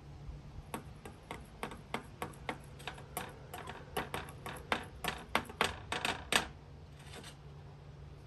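A metal utensil clicking against a small glass bowl as something is stirred in it: a run of sharp clicks, a few a second, growing quicker and louder before stopping about six seconds in.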